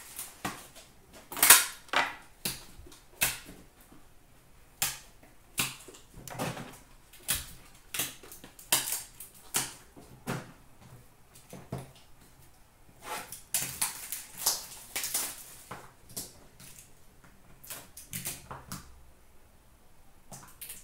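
Irregular clicks and clacks of hard plastic trading-card holders and cases being handled and set down on a glass counter and into a plastic bin, with a denser stretch of rustling and handling about two-thirds of the way through.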